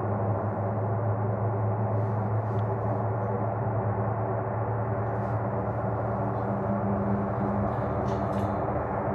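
Lockheed C-130J Super Hercules turboprops at takeoff power, giving a steady low propeller drone with a few even overtones above it and no rise or fall in pitch.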